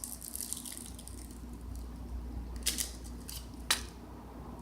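Fingers picking and peeling at a bicycle tire patch stuck to its foil backing: a crinkly rustle of the foil, then two sharp clicks later on, over a low steady hum.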